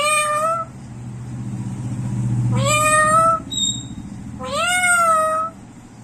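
Black-capped lory giving three drawn-out, cat-like meows about two seconds apart, each sliding up in pitch and then holding. A low hum swells under the second call.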